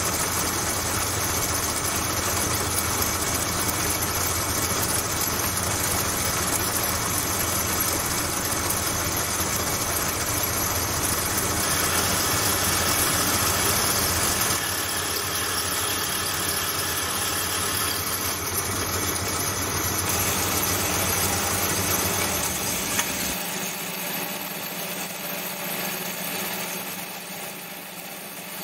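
Lathe running with a 3 mm drill bit in the chuck, boring a pilot hole 15 mm deep into a steel bearing pin held on a vertical milling slide. It makes a steady mechanical whir. About 23 seconds in, its low hum drops away and the sound gets quieter.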